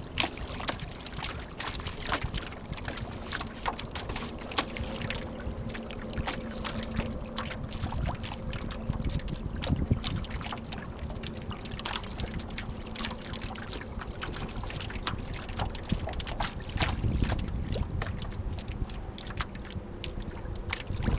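Water lapping and splashing in quick irregular slaps against the hull of a small Snark sailboat under sail, with wind buffeting the microphone in low rumbling gusts that grow stronger near the end.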